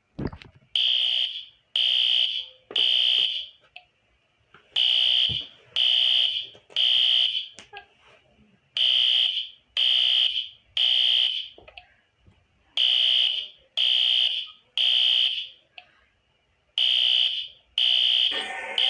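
Fire alarm sounding in the temporal-three evacuation pattern: three high-pitched beeps about a second apart, then a pause, repeating every four seconds.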